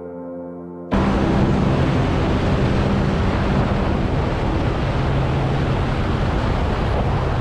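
Wind rushing over a camera mounted under a CH-4 drone, with the steady low hum of its engine and propeller, as it flies just above the runway; it cuts in suddenly about a second in as soft music ends.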